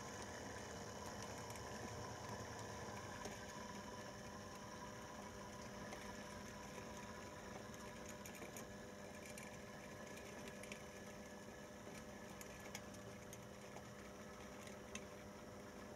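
Märklin E44 model locomotive's electric motor humming steadily as the train crawls at a low speed step, with scattered light clicks from the wheels running over the track.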